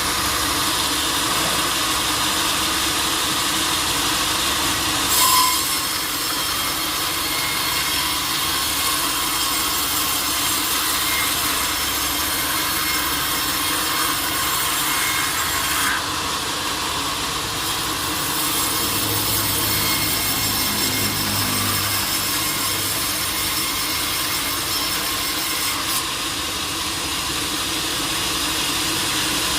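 Sawmill saw cutting through a large teak log, a steady loud sawing noise, with a brief louder knock about five seconds in and a couple of sharp clicks later on.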